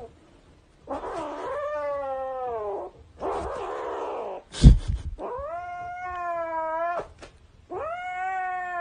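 Kitten yowling in three long drawn-out wails, with a raspy growl between the first two, the sound of a kitten guarding a toy. A short loud thump about halfway through.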